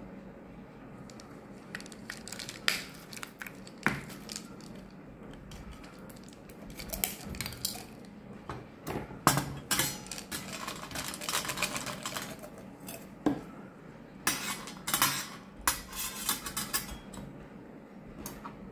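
Capsules poured from a plastic pill bottle, clattering and rattling onto a stainless steel tray in two long bursts, with a few sharp clicks before.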